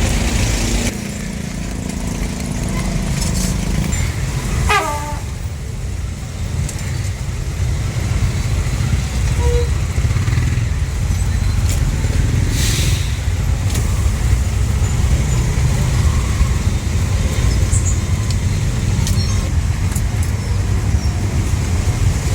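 Steady low rumble of street traffic, cars and motorbikes passing, with a brief falling tone about five seconds in and scattered light clicks.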